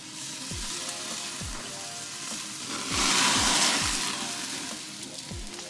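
Beef rib roast searing on a grate just above hot charcoal: dripping fat sizzles and spits on the coals, swelling into a louder hiss for about a second around the middle as a flare-up flames.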